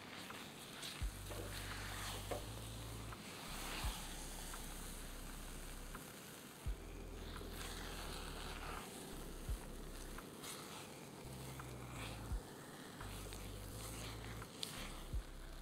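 Silicone spatula stirring and scraping thick, sticky orange paste around a pot, with a faint crackling from the hot paste. Low bass notes of background music run underneath, with a short knock about every three seconds.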